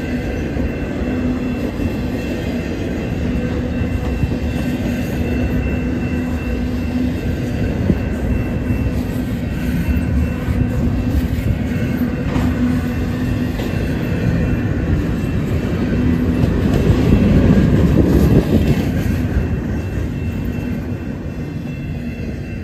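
Freight train's double-stack well cars rolling past, a steady rumble of steel wheels on rail with a thin steady whine over it. It grows louder about two-thirds of the way through, then fades as the end of the train goes by.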